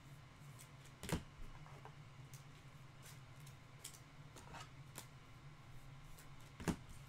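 Glossy chrome trading cards being handled and flipped through: light slides and clicks of card stock, with two sharper card taps, about a second in and near the end. A faint low hum runs underneath.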